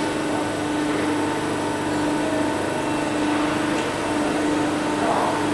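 Ormac 833 Challenger toe-lasting machine running idle, its motor giving a steady hum with a constant low tone.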